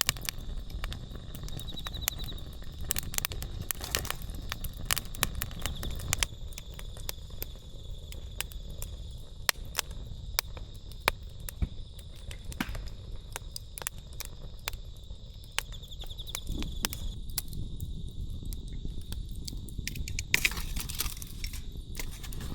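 Wood campfire crackling with irregular sharp pops, over a steady background of insects chirping with short trills now and then.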